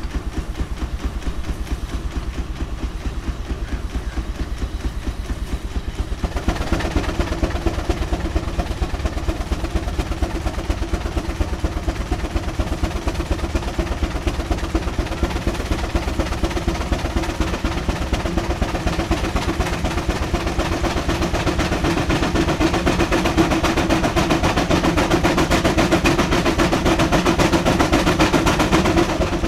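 Steam traction engine running on the belt, working a belted machine in a fast, steady beat. About six seconds in the sound grows louder and brighter, with a steady hum underneath that builds toward the end.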